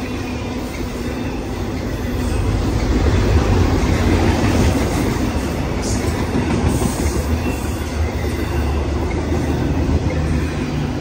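BNSF intermodal freight train's container and trailer cars rolling past close by: a steady rumble and clatter of steel wheels on rail, growing louder about two to five seconds in.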